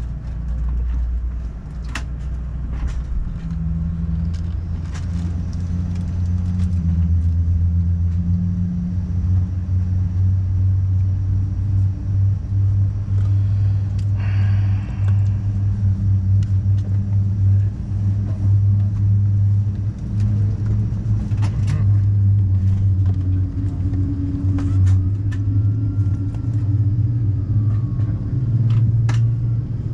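Steady low rumble and hum inside the cabin of an Airbus A380 on the ground, growing a few seconds in, with scattered light clicks.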